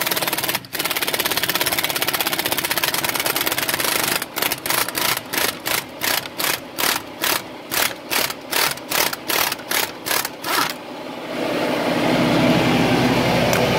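Nitro Cat 1/2-inch impact wrench hammering on a stuck locking lug nut: a continuous run of rapid impacts for about four seconds, then a string of short trigger bursts, about two a second. About eleven seconds in the bursts stop and a steady low mechanical hum takes over.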